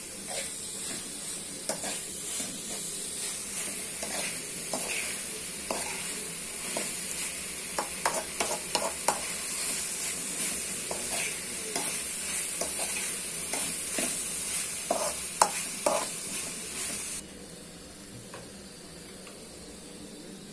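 Dried prawns and masala sizzling as they fry in a wide aluminium kadai. They are stirred, with the utensil scraping and clicking against the metal pan. The sizzling stops abruptly about three seconds before the end.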